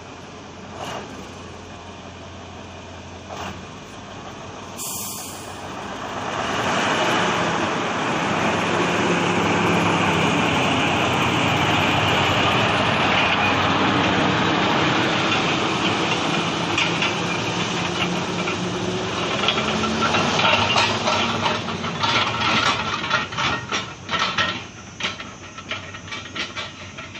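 Heavy machine engine working, quiet at first and rising about six seconds in to a loud, steady run. From about twenty seconds in, a quick series of knocks and clatter sounds over it.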